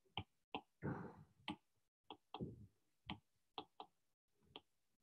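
Faint, irregular clicks and taps, about ten of them, from handwriting on a digital whiteboard with a stylus or mouse.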